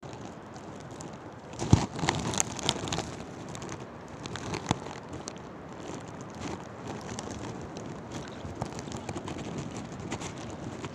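Steady outdoor noise, with wind and water, and scattered crackling clicks, with a few sharper knocks between about two and five seconds in.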